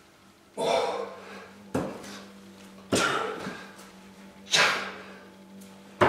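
Repeated thuds of bare hands and feet landing on a hard floor during single-leg kick-ups to a handstand against a wall, each with a sharp breath. There are five of them, about one every second and a half, and the last is the loudest.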